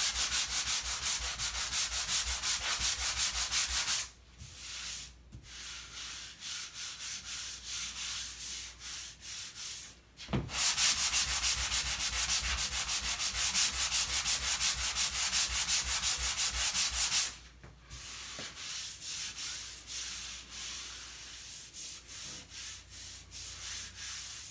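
Sanding sponge rubbed by hand over a spackle patch on drywall in quick back-and-forth scraping strokes, smoothing the patch before painting. Hard sanding for about four seconds, lighter strokes for several seconds, hard again for about seven seconds, then lighter strokes to the end.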